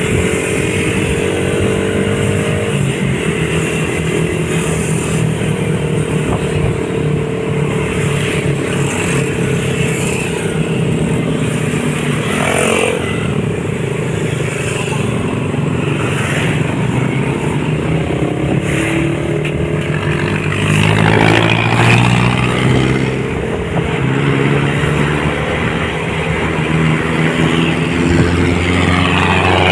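Motorcycle engine running, its pitch rising and falling with the throttle, louder about two-thirds of the way through and again near the end.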